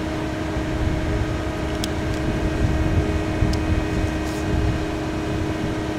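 Heavy lifting crane's engine running steadily under load, a constant machine hum over a low rumble, with a couple of light clicks about two and three and a half seconds in.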